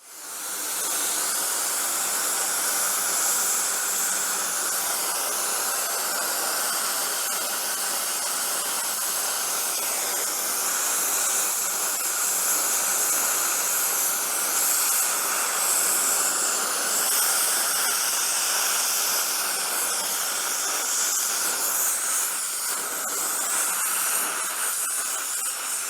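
Gas brazing torch flame hissing steadily as it preheats a cast iron piece before brazing.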